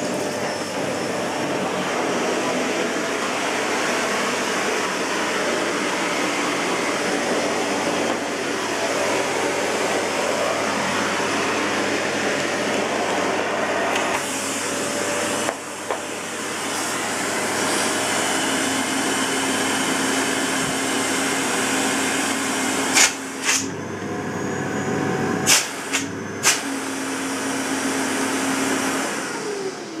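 Lux Intelligence canister vacuum cleaner running steadily at full suction. Its sound shifts about halfway through, with a steady hum added afterwards, and several sharp clicks come about three-quarters through. At the very end the motor is switched off and winds down with a falling pitch.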